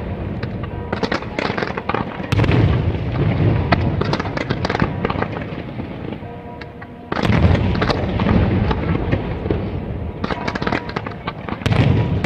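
Fireworks show: aerial shells bursting in quick succession with bangs and crackling. The barrage eases briefly about six seconds in, then a sudden loud volley starts.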